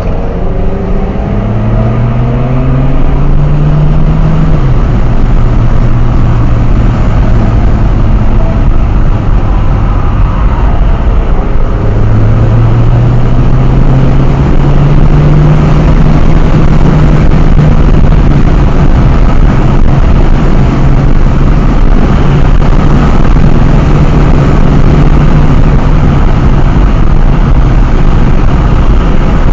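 Car engine heard from inside the cabin while driving at speed, with loud tyre and wind noise. The revs climb over the first few seconds and drop sharply about five seconds in. They climb again around twelve seconds in and then hold steady.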